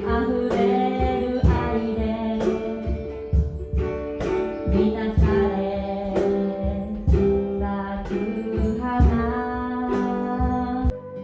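Music with a steady beat about once a second under sustained chords. The low bass drops out near the end.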